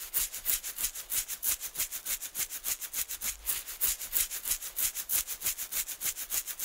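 Rapid, even back-and-forth scrubbing strokes, about six a second, as parts of a field-stripped Girsan MC9 9mm pistol are scrubbed clean by hand.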